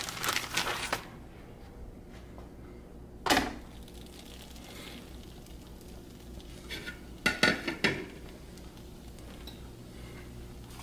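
Kitchen handling sounds: a plastic bag of flour tortillas rustling briefly at the start, then one sharp knock about three seconds in and a short run of clatters around seven to eight seconds as a tortilla is laid on a black nonstick griddle pan (comal) on the stove.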